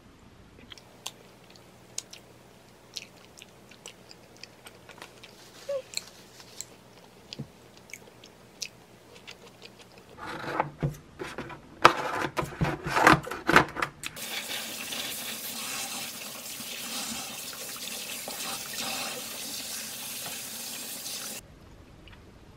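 A tap running steadily into a stainless-steel kitchen sink, cutting off suddenly near the end. Before it, a few seconds of loud clatter and crinkling as plastic packaging is handled at the sink, and earlier only light, scattered clicks.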